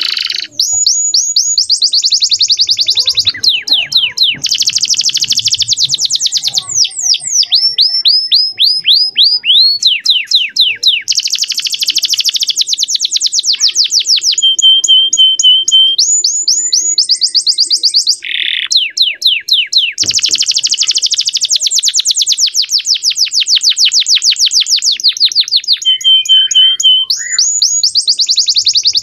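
Male domestic canary singing loudly in one long, continuous song of rapid trills, moving from one fast rolling phrase to the next. A short held note comes about halfway through and again near the end.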